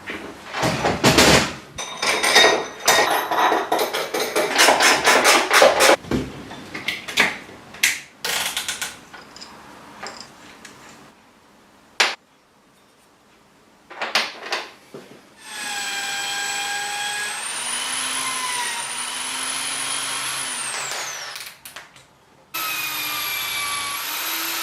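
Clatter and scraping of tools on a metal part for the first few seconds, then a small high-speed power tool running with a steady high whine that wavers in pitch and winds down about 21 seconds in, starting again near the end. It is an attempt to strip the chipped coating off a motorcycle gear shifter, which proves tougher than it looks.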